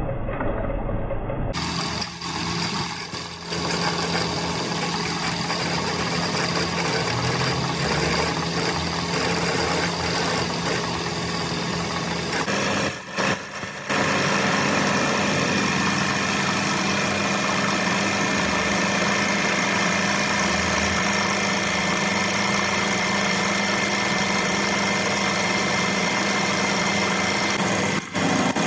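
Motor-driven workshop machine running steadily, with a steady hum made of several pitched tones. The sound changes abruptly about a second and a half in and drops out briefly around thirteen seconds.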